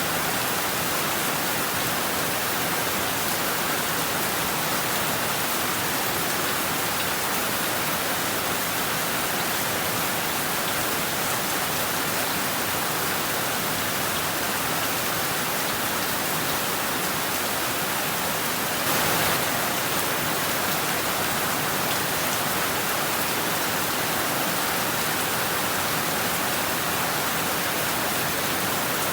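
Heavy rain falling steadily, a dense even hiss that swells briefly a little louder about two-thirds of the way through.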